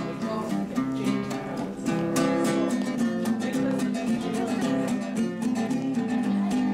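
Background music of a strummed acoustic guitar, played in a steady rhythm.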